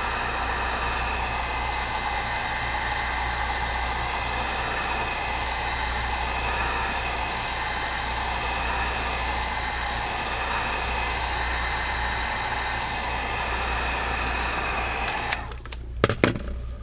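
Wagner heat gun running with a steady blowing noise while heating the cracked iPad glass, then switched off about fifteen seconds in. A few sharp knocks follow near the end.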